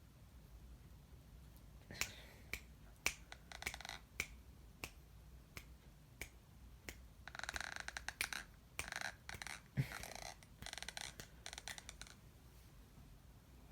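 Faint sharp clicks, roughly one every half second starting a couple of seconds in, turning after about seven seconds into denser clicking mixed with short rustling noises that stop near the end.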